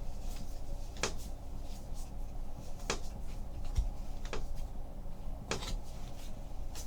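Baseball trading cards being handled and flicked through a pack, with about five sharp card snaps spaced a second or two apart over a low steady room hum.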